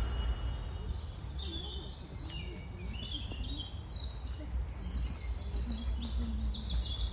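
Several small birds chirping and calling, including a quick run of about eight repeated high notes around five seconds in.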